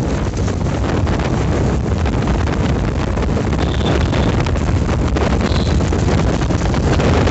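Wind buffeting the microphone on a moving Hero Splendor motorcycle, with the bike's single-cylinder engine running underneath.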